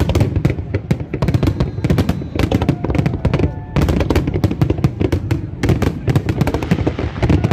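Fireworks display: a dense barrage of shells bursting, bangs and crackles in rapid succession.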